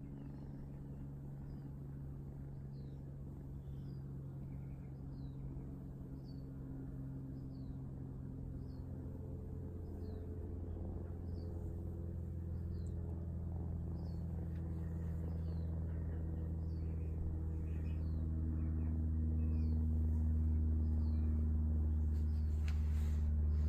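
Kitten purring steadily while being stroked, a low rumble that grows gradually louder over the second half.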